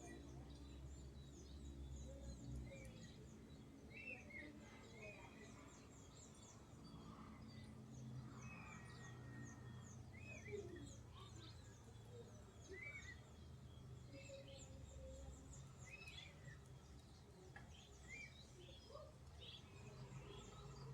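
Faint birdsong from several birds: a short up-and-down call repeats every second or two among many quick high chirps, over a steady low rumble.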